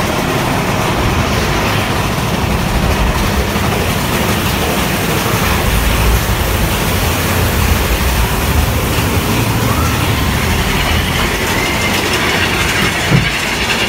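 Amusement-ride vehicle running along its track, a steady loud rumble and rattle heard from aboard, with one short knock near the end.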